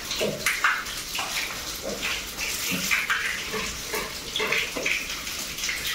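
Water running in a thin stream from a wall tap and splashing onto a wet dog's coat and the tiled floor, with irregular splashes as hands rub the dog; the tap's flow is low because the water tank is running dry.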